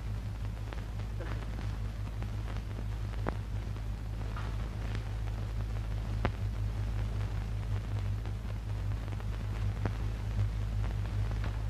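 Old film soundtrack noise: a steady low hum under faint hiss, with scattered crackles and pops, the loudest about three, six and ten seconds in.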